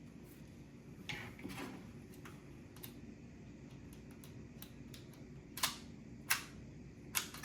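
Scattered small clicks and taps of build-kit parts and nuts being handled and fitted during assembly, soft at first, with a few sharper, louder clicks near the end.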